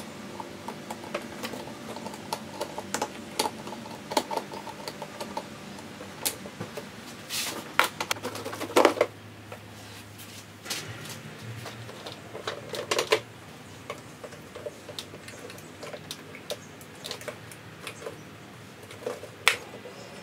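Irregular clicks, taps and clatter of hands and tools working on the plastic engine-bay cowl pieces and their screws, with a few louder knocks, over a faint steady hum.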